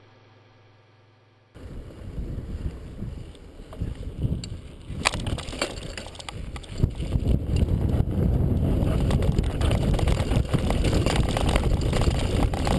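Near silence at first, then about a second and a half in a mountain bike riding a dirt trail comes in abruptly: wind rumbling on the microphone over the rattle of the bike, with sharp clicks and knocks from bumps. It gets louder over the next few seconds.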